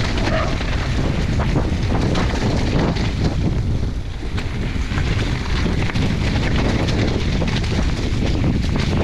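Wind buffeting the microphone with a steady low rumble while an electric mountain bike is ridden down a rough trail, its tyres and frame rattling and knocking over the ground.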